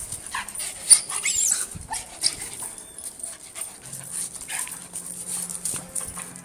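A dog giving short whines and yips while it scrambles about on a metal chain leash, with the chain clinking. The loudest sound is a sharp clink or yelp about a second in.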